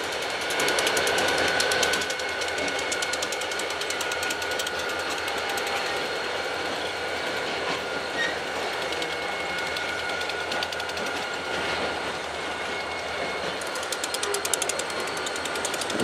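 Boxcars of a slow-moving freight train rolling past on the rails, with a fast, steady metallic clatter and a thin high-pitched squeal. The sound is slightly louder in the first two seconds.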